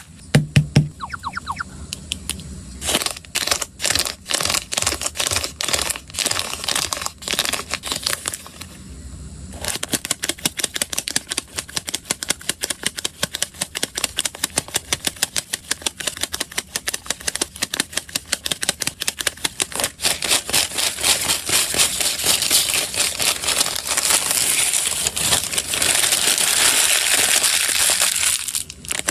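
Hands with long acrylic nails handling paper and plastic packaging in a run of quick taps, clicks and rustles. This builds into continuous crumpling and crinkling of white paper over the last several seconds.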